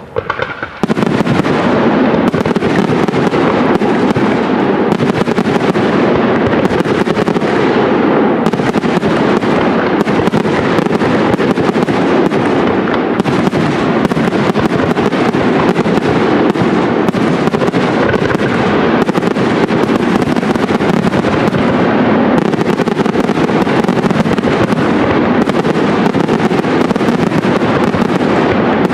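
Aerial fireworks display: a dense, unbroken barrage of shell bursts and crackling, the bangs coming too fast to tell apart. It starts with a few separate bangs and becomes a continuous loud volley about a second in.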